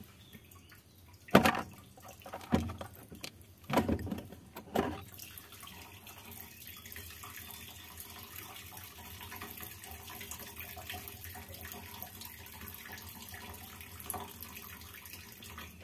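Fuel poured from a plastic container into a car's fuel tank through the open fuel-pump hole. Several loud glugs in the first five seconds, then a steady stream splashing into the fuel in the tank.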